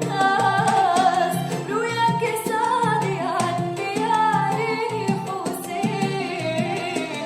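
A song: a voice singing a winding, ornamented melody over instrumental accompaniment with a regular percussion beat.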